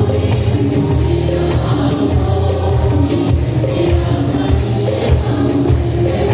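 Live worship band music led by a Korg Pa1000 arranger keyboard with Roland Octapad electronic percussion: a steady bass line and held keyboard notes over a fast, even high percussion beat.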